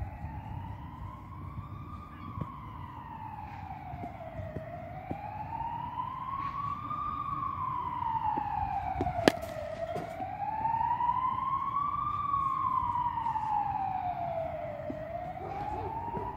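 An emergency vehicle's siren wailing in slow rising and falling sweeps, about five seconds each, getting louder toward the middle. About nine seconds in, a single sharp crack of a cricket bat hitting the ball.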